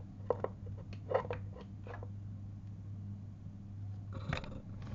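A few light clicks and rustles as a phone is picked up and set back in place, over a steady low hum.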